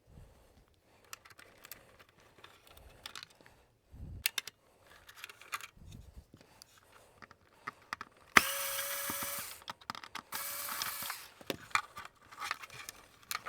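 A small handheld power tool, such as a cordless screwdriver or drill, runs in two short bursts of about a second each past the middle, among scattered small clicks and rattles of parts being handled during a vacuum cleaner strip-down.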